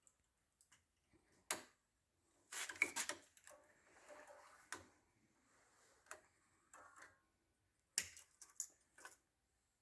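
Small metal fuel-pump parts and a spring clicking and scraping as they are fitted together by hand, with a handful of sharp clicks spread out and a quick run of them about three seconds in.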